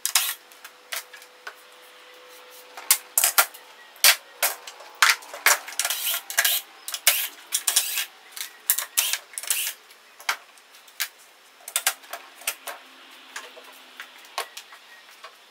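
Irregular sharp clicks, taps and light clatter of small hard parts and hand tools being handled, coming thick in places and then pausing.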